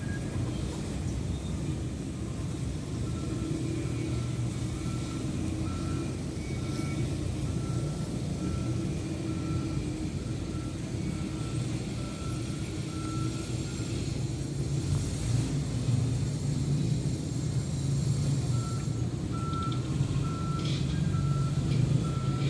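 A vehicle's reversing alarm beeping at an even pace, about one and a half beeps a second, stopping for several seconds midway and then starting again, over a steady low engine rumble.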